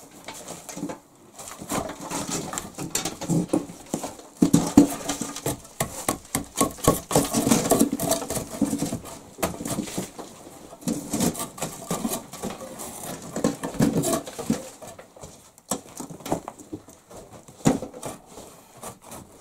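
Broken brick, clay and soot being scraped and picked out of a brick stove by hand, with irregular scraping and clattering of rubble.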